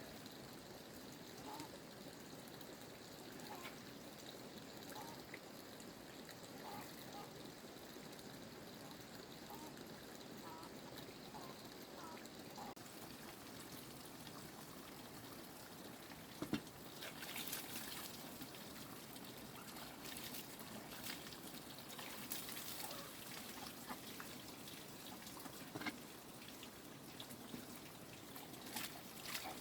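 Faint steady trickling water, with scattered light knocks and clicks in the second half.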